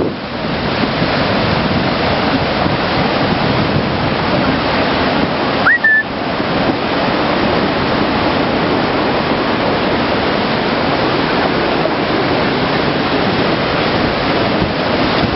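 Goðafoss waterfall: a steady, loud rush of falling water. About six seconds in there is one short rising chirp.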